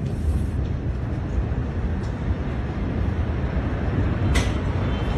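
Steady low rumbling outdoor noise with no clear source, with two brief clicks about two and four and a half seconds in.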